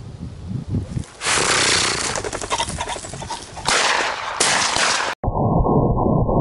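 Loud rustling and rapid flapping as a game bird is flushed from tall grass and takes off. About five seconds in it cuts off sharply and muffled background music begins.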